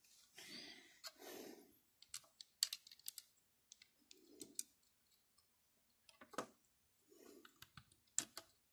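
Faint, scattered clicks of plastic Lego bricks being handled and pressed onto a model, with soft rustling between.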